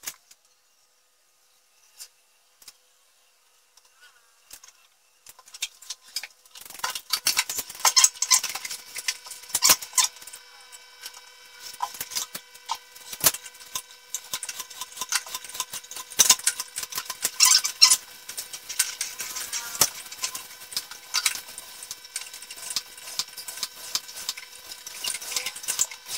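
Snap-off utility knife blade scraping and cutting through a thin sheet of hard model plywood in repeated scratchy strokes, starting about five seconds in after a few light clicks. A faint steady hum runs behind the cutting.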